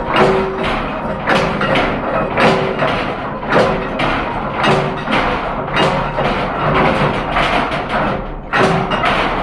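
Music with a steady percussive beat: repeated sharp strikes, about one to two a second, with short pitched notes.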